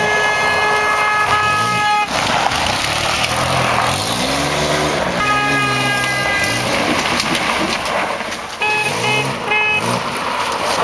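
Ford Aerostar minivan driven hard on dirt, its engine revving up and down while a car horn sounds: a long blast at the start, another held for over a second about halfway, and three short toots near the end.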